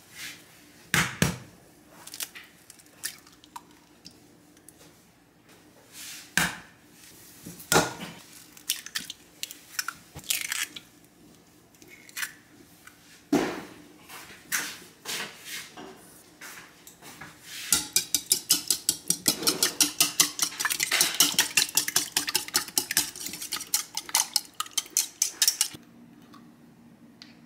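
Eggs being cracked on a white ceramic mixing bowl: scattered sharp taps and shell cracks. Then a wire whisk beats them in the bowl, a fast, even clinking of wire on ceramic at about five strokes a second for some eight seconds, stopping shortly before the end.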